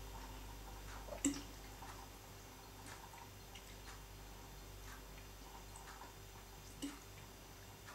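Quiet room tone with a low steady hum and scattered faint clicks, with two sharper light knocks, one about a second in and one near the end.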